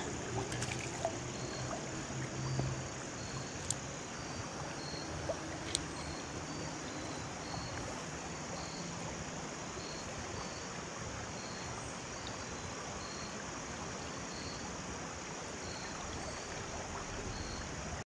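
Creek water running over a shallow riffle, a steady, even rush. Two faint sharp clicks come a few seconds in.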